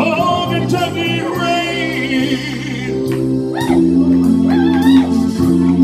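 Male singer holding a long sung note with vibrato over backing music. After about two and a half seconds the voice stops and the backing music carries on alone in an instrumental break.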